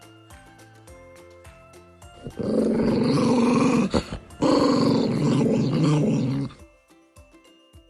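An animal growling loudly in two long, rough growls, each about two seconds, with a brief break between them.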